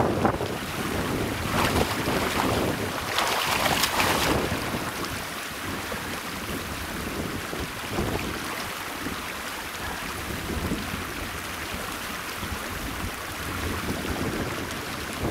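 Wind buffeting the microphone in gusts, strongest for a few seconds near the start, then settling into a steady rushing noise.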